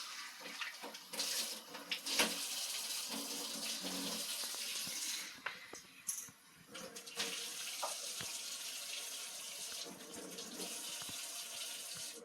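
Water running in a steady stream, breaking off about five seconds in and starting again about two seconds later, with scattered clicks and knocks.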